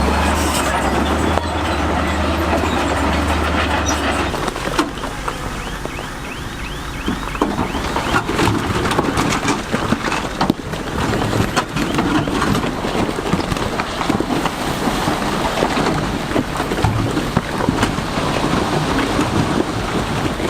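Heavy diesel earthmoving machinery working stone. A steady low engine hum drops away about four seconds in. After that, continuous clattering and knocking of rock, with dense irregular impacts.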